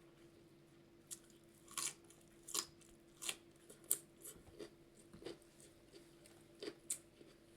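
Close-up mouth sounds of a person eating: chewing with irregular wet clicks and lip smacks, about a dozen in a few seconds, over a faint steady hum.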